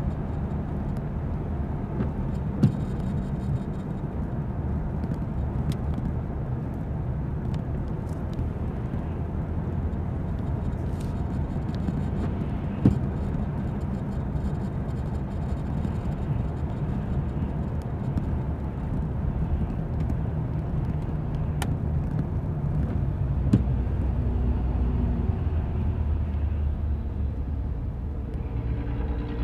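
A 2005 Ford Explorer Sport Trac driving on a wet road, heard from inside the cab: a steady low rumble of engine and tyre noise. Two sharp knocks come a few seconds in and about halfway through.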